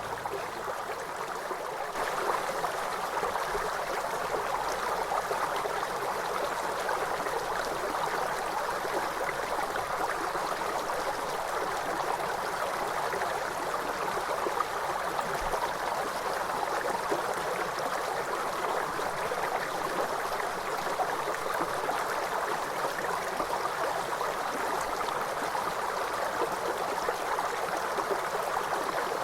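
River water flowing steadily, a continuous rushing sound that gets slightly louder about two seconds in.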